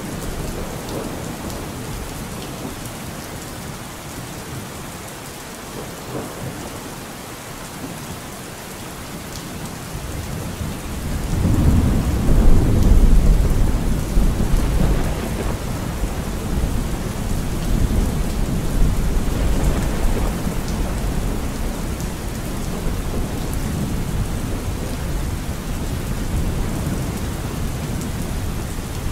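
Steady rain with a long, deep roll of thunder that builds about ten seconds in, peaks soon after and rumbles on for several seconds before fading back under the rain.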